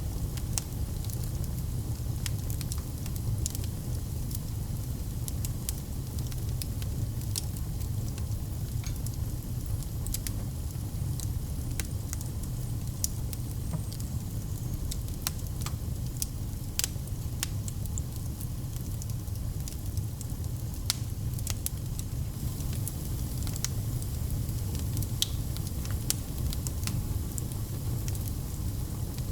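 Fireplace fire crackling, with frequent sharp irregular pops over a steady low rumble.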